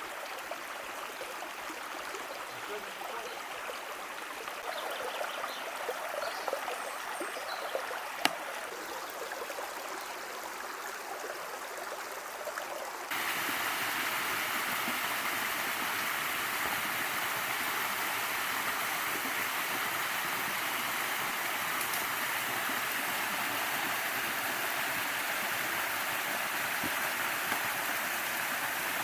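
Rushing water of a rocky mountain river, a steady even rush; about halfway through it jumps suddenly to a louder, closer rush.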